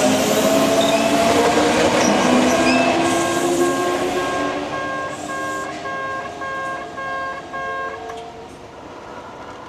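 Kintetsu Minami Osaka Line electric train going through with a rising motor whine, loudest at first and fading as it moves off. A level crossing's warning bell rings about twice a second and stops about eight seconds in.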